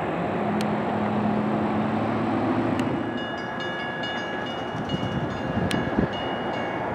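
Jet airliner engines running, a steady rumble and hiss. After about three seconds, wind buffets the microphone and high thin tones come and go.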